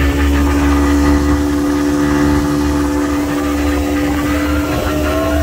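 Outboard motor of a fishing launch running steadily at an even speed, its pitch unchanging, over a low rushing noise.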